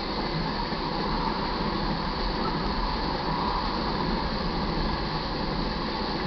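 Freight train of crude oil tank cars rolling past, a steady rumble and rush of steel wheels on the rails.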